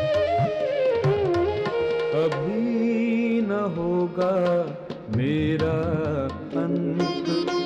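Indian classical-style music: a melody with gliding, ornamented notes over repeated hand-drum strokes.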